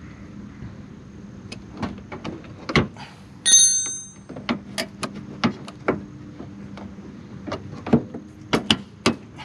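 Hands working on a car bumper with tools and hardware: a run of irregular clicks and knocks, with one ringing metallic clink about three and a half seconds in.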